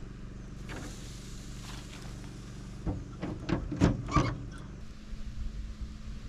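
A cluster of sharp knocks and clatter, about three to four seconds in, from the chuck roast being loaded into a smoker, over a steady low hum.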